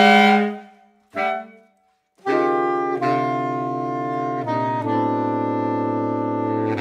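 Saxophone quartet (soprano, alto, tenor and baritone) playing contemporary chamber music. A held chord fades away, a short single note sounds about a second in, and after a brief silence the full quartet comes in with sustained chords over a low baritone line. The chords shift three times and then cut off together.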